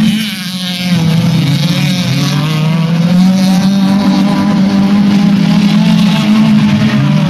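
Engines of several under-1600 cc autocross race cars running hard on a dirt track, with a steady drone and notes that rise and fall as the drivers rev and ease off. The sound dips briefly about half a second in, then picks up again.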